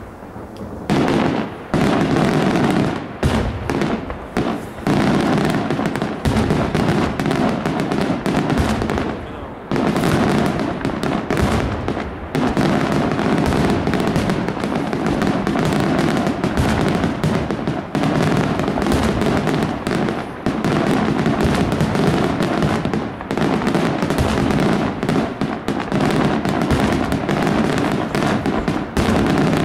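Aerial fireworks barrage: a dense, continuous run of overlapping bangs and crackle starting about a second in, with two short dips about a third of the way through.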